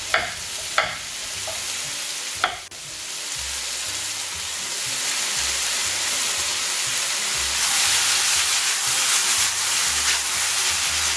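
Bell peppers sizzling as they fry in olive oil in a stainless sauté pan. Over the first couple of seconds a chef's knife knocks sharply on a wooden cutting board as an onion is sliced. The sizzle gets louder about seven and a half seconds in, once the onion is in the pan and the pan is being tossed.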